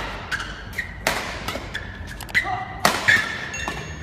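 Badminton rackets striking shuttlecocks in quick succession during a defense drill, each hit a sharp crack with a short echo in the hall, along with a few brief high squeaks of court shoes.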